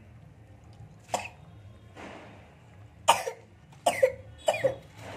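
A person coughing: one cough about a second in, then three more in quick succession near the end. Under them is a faint steady sizzle of jilebi dough frying in hot oil.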